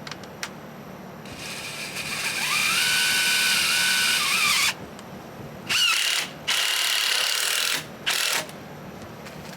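Power drill driving screws into a wood spacer: one long run of about three seconds whose whine rises, holds steady and drops at the end, then three shorter bursts.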